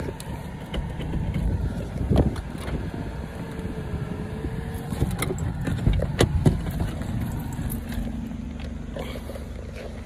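Car heard from inside the cabin as a steady low rumble, with several knocks and rubs from the phone being handled, the loudest around six seconds in.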